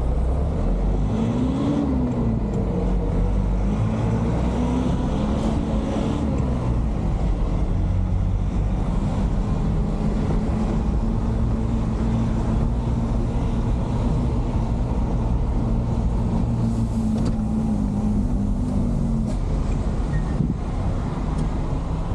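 Small cargo truck's engine heard from inside the cab while driving, with a steady low rumble of the road under it. The engine's pitch rises and falls a few times early in the stretch, then holds steady and drops near the end.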